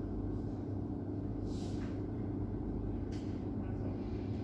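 Steady low room hum, with a brief soft hiss about one and a half seconds in and a faint single click about three seconds in.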